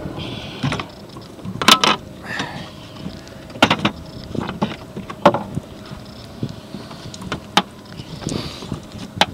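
A lobster-trap rope being hauled in by hand over a small boat's side, with a sharp knock every second or two and wind and water noise underneath.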